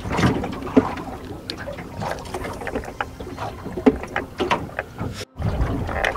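Water slapping and lapping against the hull of a small boat rocking in a swell, with a few sharp knocks, about a second and four seconds in. The sound drops out briefly just after five seconds.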